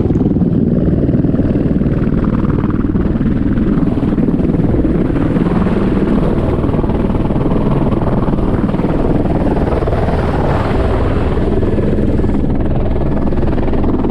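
Helicopter in flight: steady, loud rotor and engine noise.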